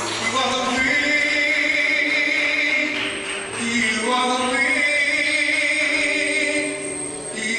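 Male soloist singing into a microphone in a slow, drawn-out style, holding long notes with a short breath between phrases about halfway through.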